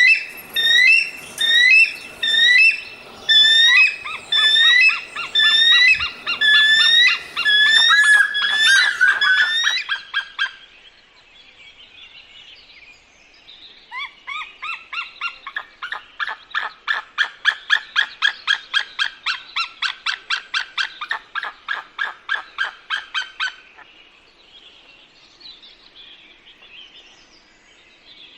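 Bird calls: a loud series of repeated, hooked call notes, roughly two a second, for about ten seconds. After a short lull comes a faster run of rapid pulsed notes that swells and then fades.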